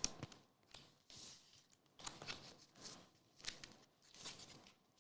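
Trading cards being handled: faint rustles and light scrapes of card stock, several short ones about a second apart.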